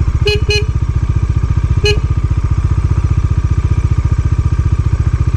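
Motorcycle engine running steadily under way, with an even, rapid pulsing. Three short beeps sound in the first two seconds.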